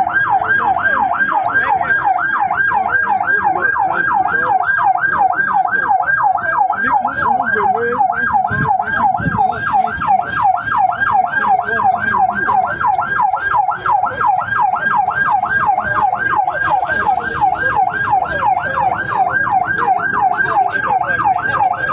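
Fire engine siren in a fast yelp, sweeping up and down about three times a second without a break.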